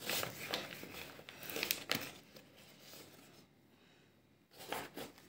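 Paper flour bag rustling and crinkling as a stuffed pepper's open end is dipped into the flour, for about two seconds, then a shorter rustle near the end.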